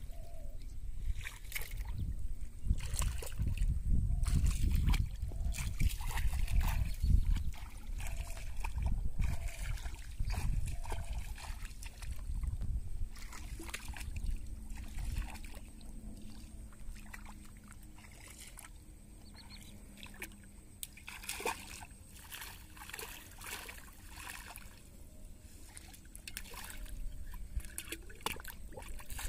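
Shallow water splashing and sloshing as a person wades and works his hands through it, in many short irregular splashes. A heavy low rumble runs under the first third and then eases off.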